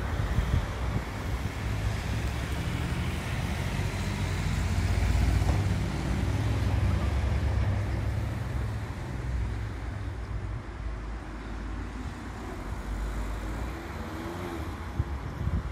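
A car driving past close by, its engine and tyre noise building to a peak about halfway through and then fading, over a low rumble of wind on the microphone.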